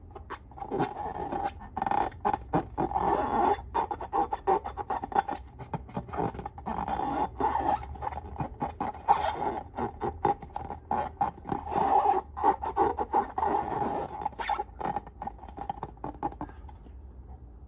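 Slime and balloon material being worked by hand, giving a dense, irregular run of scratchy crackles and small clicks that stops about a second before the end.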